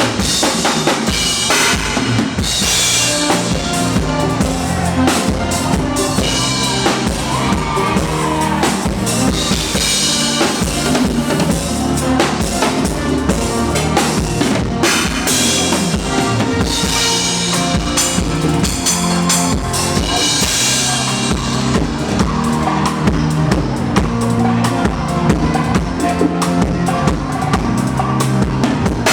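Drum kit played at a sound check, with bass drum, snare rimshots and cymbals, over sustained pitched backing music.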